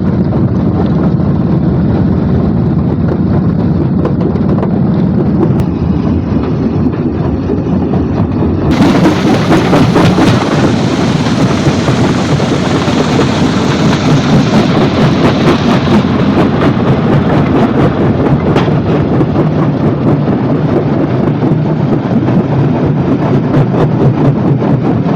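Stone crushing plant machinery running with a continuous heavy rumble. About nine seconds in it turns louder and harsher, with dense rattling and knocking of rock, as the vibrating feeder starts and stones drop into the empty crusher.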